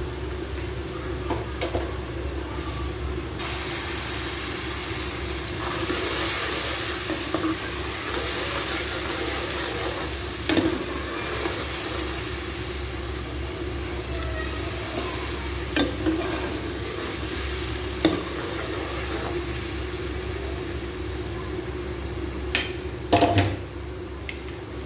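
Onion and spice masala sizzling in a metal pan on the stove, a metal spoon stirring it and clicking against the pan now and then. A few seconds in the sizzle gets louder and brighter as a little water goes into the hot dry masala to keep it from burning.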